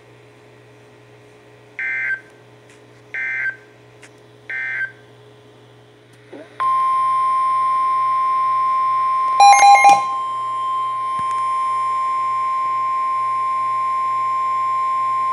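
Emergency Alert System SAME header: three short bursts of screechy two-tone digital data sound, about a second and a half apart. A steady, single-pitched weather-radio warning alarm tone follows and holds for about nine seconds, announcing a new warning. A brief cluster of louder beeps sounds over it about nine and a half seconds in.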